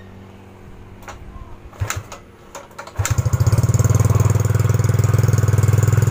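Yamaha Mio GT scooter's single-cylinder engine kick-started: a few knocks from the kick lever, then about three seconds in the engine catches and runs steadily at a high idle, the idle speed set too high.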